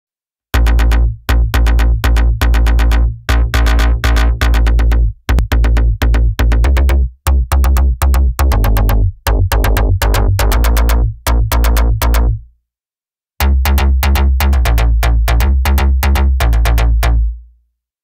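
Arpeggiated synth-bass preset from UVI Falcon's Titanium soundbank playing a fast rhythmic pattern of short, hard-attacked notes over heavy deep bass. It stops about two-thirds through, and after a short gap a second arpeggiated bass preset plays a similar pattern that fades out near the end.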